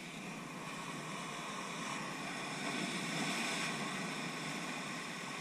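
Ocean surf washing and foaming among shoreline rocks: a steady rushing that swells a little about three seconds in.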